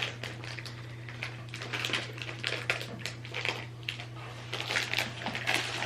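Irregular crackling and small clicks of a plastic snack bag being handled, over a low steady hum.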